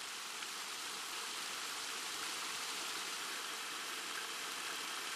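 A steady, even rushing hiss with no breaks or changes, carried mostly in the upper range.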